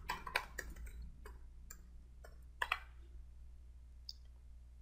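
Typing on a computer keyboard: a run of about ten separate key clicks at an uneven pace, thinning out after about three seconds, over a faint steady low hum.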